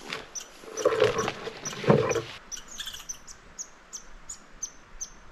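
A small animal giving a short, high chirp over and over, about three times a second. Two louder crunching steps through brush come about one and two seconds in.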